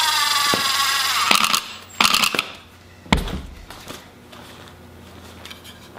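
Cordless impact driver running a screw into a wooden joint. It runs steadily, dips slightly in pitch early on and stops about a second and a half in. Two short bursts follow to seat the screw, then a single thump about three seconds in.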